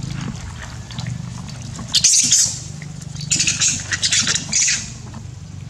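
Macaques screeching in harsh, high-pitched bursts: one short outburst about two seconds in, then a longer run of screeches a second later, over a steady low hum.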